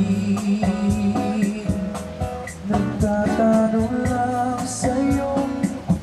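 Live band playing a mellow song: strummed acoustic guitar with a singing voice.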